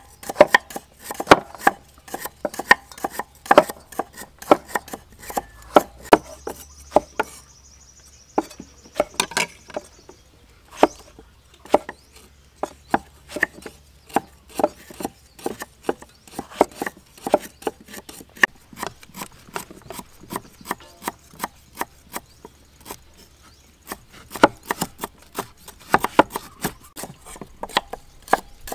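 Several cleavers chopping vegetables on thick round wooden chopping blocks, a quick uneven run of knocks on wood with a short lull about a third of the way in.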